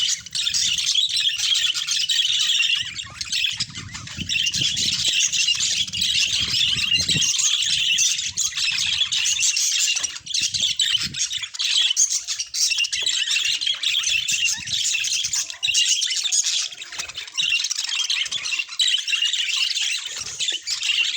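Budgerigars chattering continuously, many high-pitched calls overlapping without a break.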